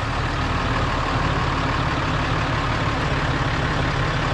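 Ram 3500's Cummins turbo-diesel engine idling steadily, freshly started, with a heavy low rumble.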